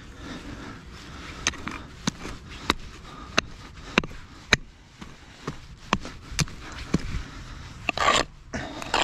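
A steady run of sharp knocks, roughly two a second, with a brief scraping rustle near the end.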